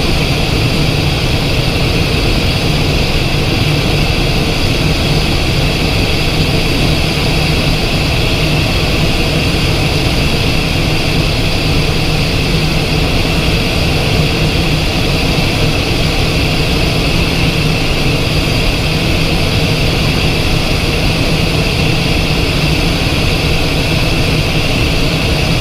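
Cessna Citation XLS cockpit noise: the steady whine and low rumble of the twin turbofan engines, unchanging throughout.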